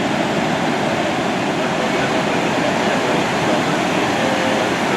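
Steady rushing of ocean surf breaking on the beach.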